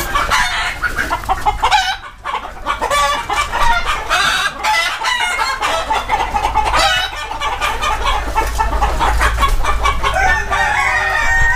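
A flock of desi (gavran) chickens clucking and calling over one another, with a rooster crowing toward the end. A low rumble runs underneath in the later seconds.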